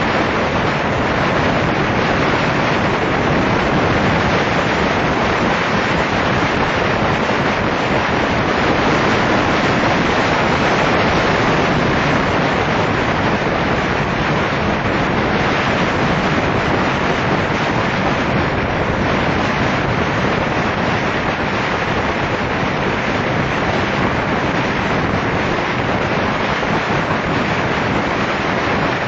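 Steady rush of wind over the microphone of a camera riding on a moving motorcycle, with road noise mixed in and no clear engine note.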